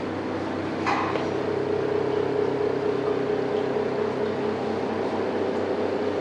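Steady mechanical hum with several fixed tones, from the compressors and fans of commercial fridges and freezers. A single short knock about a second in.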